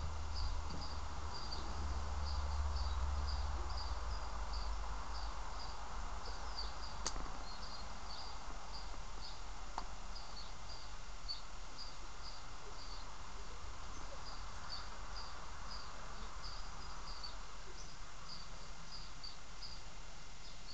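Outdoor ambience: a short, high chirp repeating about twice a second over a steady low rumble, with a single faint click about seven seconds in.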